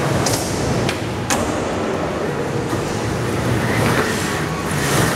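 Skateboard wheels rolling on a concrete floor, a steady rumble, with three sharp knocks in the first second and a half.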